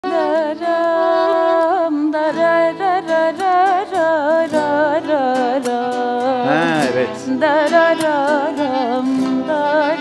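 A woman singing a Turkish folk song (türkü) in an ornamented, melismatic style, her voice curling up and down between held notes, over steady instrumental accompaniment.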